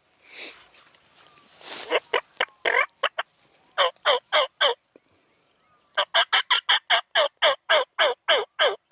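Turkey yelping: three runs of short, evenly spaced yelps at about three to four a second. The last and longest run has about a dozen notes. Two soft rustling swells come shortly before the first run.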